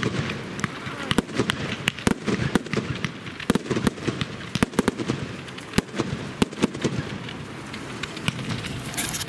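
A fireworks display going off: a dense, irregular string of sharp bangs and crackles.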